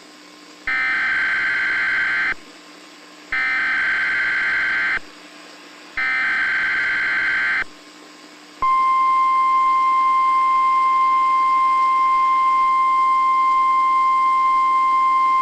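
NOAA Weather Radio alert opening: three identical harsh, buzzy bursts of SAME header data, each about a second and a half long with short gaps. About 8.6 s in, the steady single-pitch weather radio warning alarm tone starts and holds.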